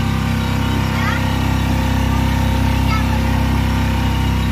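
Motorboat engine running steadily, a low even hum.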